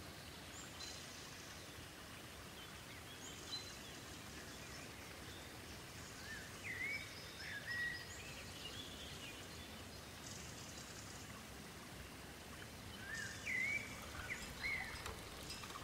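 Faint outdoor ambience: a steady soft hiss with birds chirping, short rising chirps in two clusters, one near the middle and one near the end.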